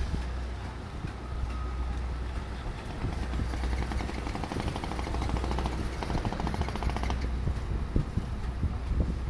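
An engine running steadily with a deep low hum and mechanical clatter; a fast, even rattle stands out from about four to seven seconds in.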